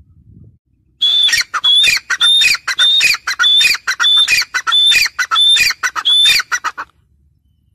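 Grey francolin calling: a loud, repeated series of about nine high-pitched notes, roughly one and a half a second, starting about a second in and ending in a few quicker, shorter notes.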